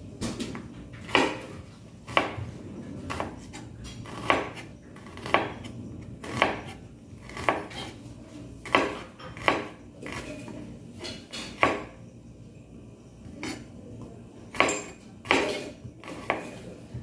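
Large chef's knife chopping down onto a cutting board: sharp knocks about once a second, some louder than others.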